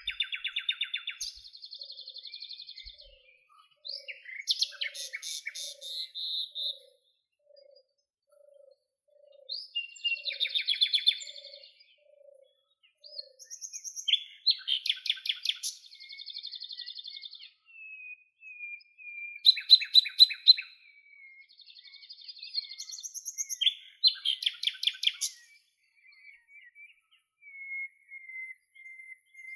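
Songbird singing: short phrases of fast trills and chirps, repeated every few seconds. A faint low note repeats about once a second through the first half.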